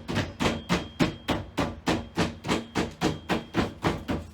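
Hammer tapping in nails in a quick, even run of strikes, about four a second.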